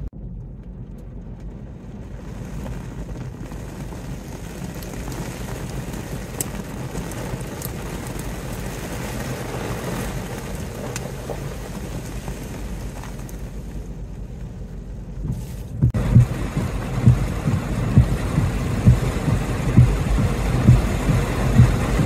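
Storm wind and wind-driven rain with a steady low rumble underneath. About sixteen seconds in it turns louder, with low gusts thumping on the microphone roughly once a second.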